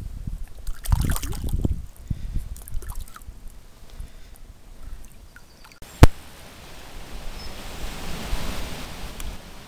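Water splashing and sloshing as a hand handles a caught trout at the surface of a stream. About six seconds in there is a single sharp click, and after it the soft steady rush of flowing water.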